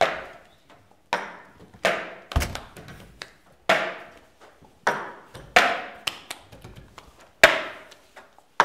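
Cup-song rhythm: hand claps and a plastic cup knocked and slapped on a tabletop, in an uneven series of sharp strikes roughly a second apart.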